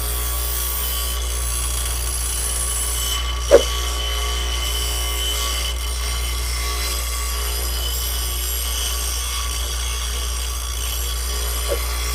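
Digital Craft variable-speed electric rotary tool (die grinder) running steadily with a small stone grinding wheel, grinding the heads of steel nails. A single sharp click about three and a half seconds in, and a fainter one near the end.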